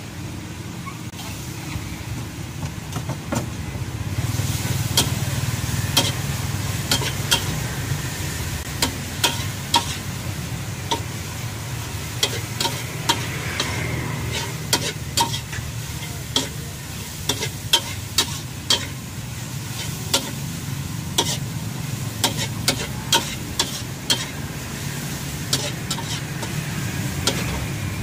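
A metal spatula scraping and clanking against a steel wok during stir-frying, over a steady sizzle of frying food. The clanks come as irregular sharp strikes, growing louder and more frequent from about four seconds in.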